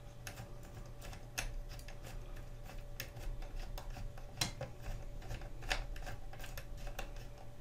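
Scattered light clicks and taps from fingers working a new dial cord around the dial drum of a valve radio chassis as the drum is turned, over a faint steady hum.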